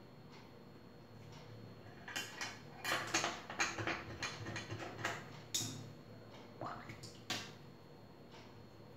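A cluster of clicks and light knocks of painting tools being handled, brushes picked up and set down against the palette and desk, from about two seconds in to past seven seconds. Faint ticking about once a second underneath.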